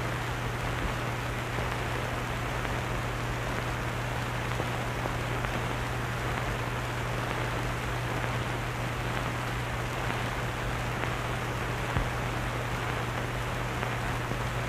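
Wind tunnel fans running: a steady rush of air with a constant low hum.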